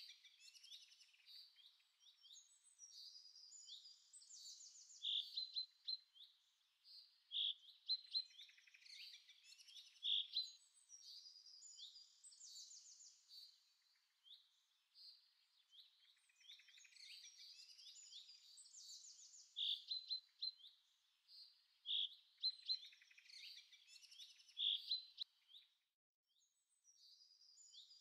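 Birds singing: quick high chirps and trills, with a short sharper note every two to three seconds.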